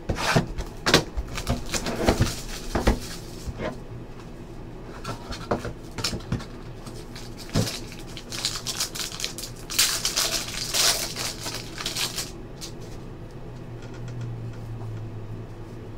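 A trading card box and its foil-wrapped pack being handled and opened: clicks and knocks of cardboard in the first few seconds, then a burst of crinkling and tearing as the pack wrapper is ripped open, about ten seconds in.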